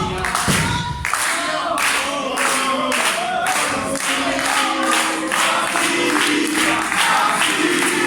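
Wrestling crowd chanting together with rhythmic clapping, about two claps a second. There is a heavy thud right at the start.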